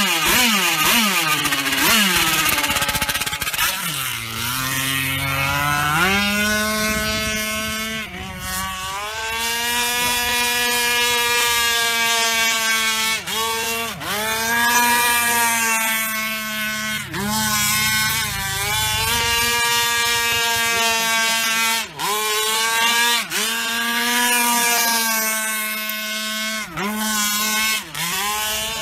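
RC speed boat's 40cc two-stroke engine running hard, its pitch climbing and falling over and over as the throttle is opened and chopped, with several sudden short drops.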